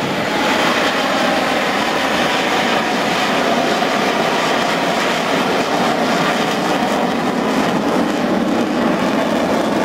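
F/A-18 fighter jet flying past, its jet engines making a steady, loud rushing noise.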